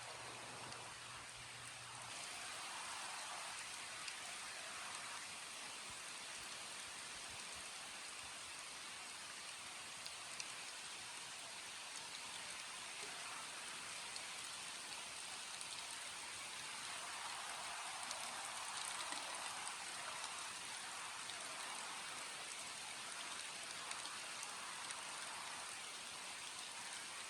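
Steady rain falling, with scattered single drops ticking through the hiss; it grows a little heavier a few seconds in and again past the middle.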